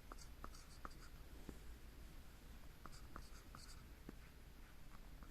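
Faint scratching of writing on paper: short strokes in small clusters with pauses between them.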